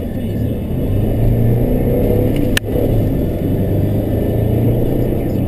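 Car driving, a steady low rumble of engine and road noise, with one sharp click about halfway through.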